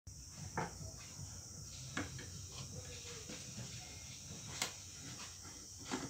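Tools and metal ceiling-fan parts being handled on a workbench: four sharp clicks and taps spread a second or two apart, over a steady high hiss.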